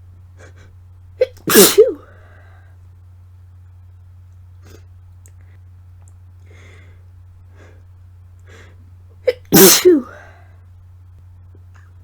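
Two sneezes from a woman with a cold, induced to relieve a tickly nose, about eight seconds apart. Each is a short catch of breath followed at once by a loud, explosive sneeze. Faint sniffs and breaths fall between them over a steady low hum.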